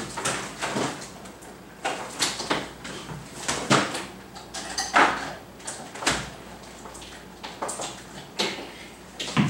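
Irregular knocks and clunks of things being handled and set down, about ten in all, the loudest about four and five seconds in.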